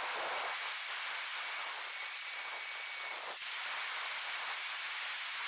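Electric drill running as it bores the knife's holes, a steady high hiss with a faint whine.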